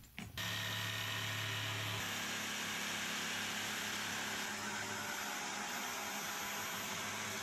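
A power tool's electric motor running steadily with a constant hum, its tone shifting slightly about two seconds in and again about four and a half seconds in.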